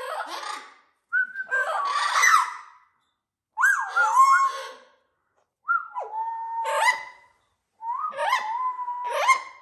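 Blue-fronted amazon parrots calling in five loud bouts, each mixing whistled, sliding notes with harsh squawks, with short pauses between them. This is the very loud calling these parrots make when excited in the run-up to the breeding season.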